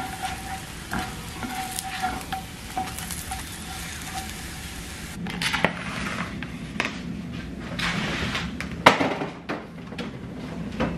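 Tortillas sizzling as they fry in butter in a pan, with a spatula moving them. About five seconds in this gives way to separate knocks and clatter of things being handled on a kitchen counter, the loudest knock about nine seconds in.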